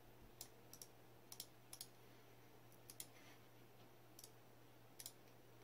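Faint computer mouse clicks, about a dozen spread over a few seconds, several of them in quick pairs, over a low steady hum.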